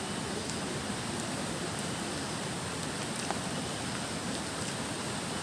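Steady, even rushing noise with a few faint ticks scattered through it.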